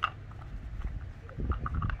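Dog nosing at a plastic treat-puzzle toy, its sliding pieces clicking and knocking: one sharp click at the start, then a quick run of clicks together with a dull low rumble in the second half.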